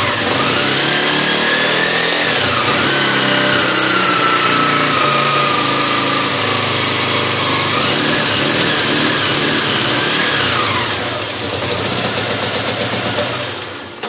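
Honda CG 125 Fan's air-cooled single-cylinder four-stroke engine running just after start-up, freshly rebuilt after a gearbox-noise repair. It is revved up and held, revved again about eight seconds in, then drops back to an idle with an even pulsing beat near the end.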